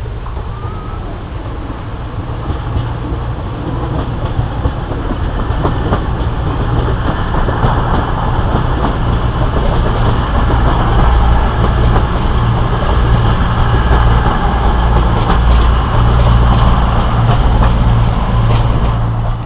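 CrossCountry Voyager diesel multiple unit running past the platform, its underfloor diesel engines droning with a deep hum over wheel-on-rail noise. It grows louder as the train draws level and stays loud as the rear coaches go by.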